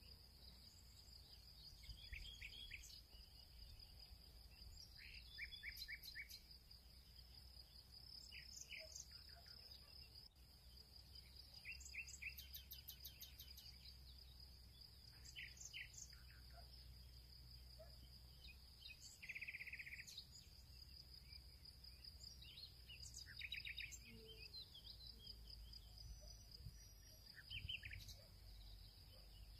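Faint background of a steady high insect trill, with short runs of quick bird chirps every few seconds and a low hum underneath.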